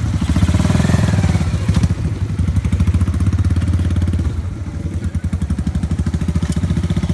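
Small motorcycle engine running close by, its exhaust pulsing rapidly and steadily.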